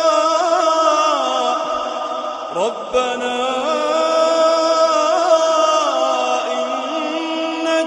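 A Quran reciter chanting in tajweed style, holding long melismatic notes that waver up and down in pitch. There is a short break with a quick rising glide about two and a half seconds in, then the next phrase begins.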